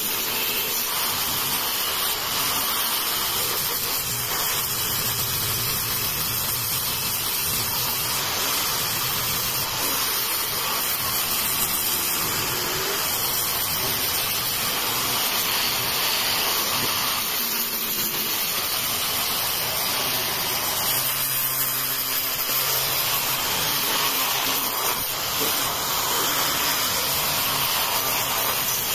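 Electric angle grinder fitted with a sanding disc, running steadily as it sands the end-grain face of a wooden slab, with a constant hiss of abrasive on wood.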